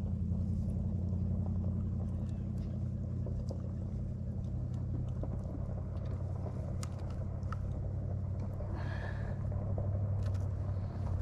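A steady low motor hum with faint scattered clicks.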